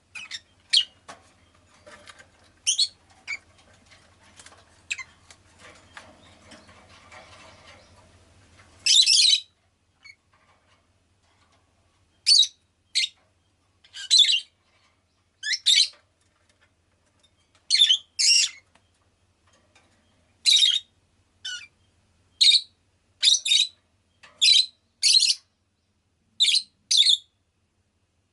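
Rosy-faced lovebird calling: quick soft chirps at first over a faint low hum, then, from about nine seconds in, loud high-pitched calls, often in pairs, every second or two.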